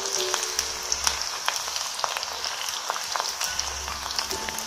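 A puri of samak rice flour deep-frying in hot oil: a steady sizzle with many small crackles and pops.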